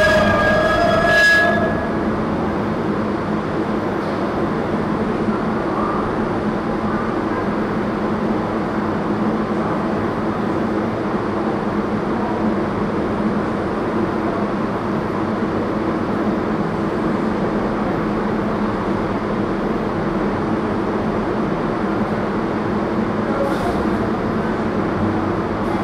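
New York City subway train heard from the platform: a high-pitched squeal that stops about a second and a half in, then a steady train rumble.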